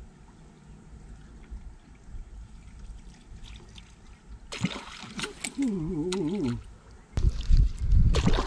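Water lapping quietly at the shore rocks. About halfway in, fishing rod and reel handling noise and splashing start suddenly, with a brief wavering voice-like sound, as a fish takes the bobber rig. Near the end comes a heavy rumble of close handling or wind on the microphone.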